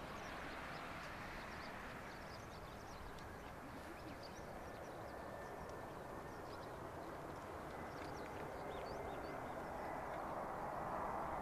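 Distant jet airliner engines: a steady rushing noise that grows louder near the end, with a faint high whine in the second half. Small birds chirp over it.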